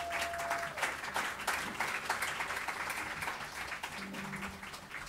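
Audience clapping and applauding at the end of a live band's song, many separate claps, thinning out near the end.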